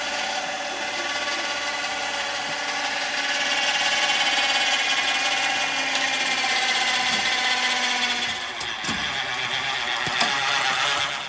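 Motor winding the cable of a makeshift pulley system rigged to drag a stuck round hay bale, running with a steady whine under load; the cable goes taut and the bale does not shift. The whine falters with a few knocks near the end and then stops.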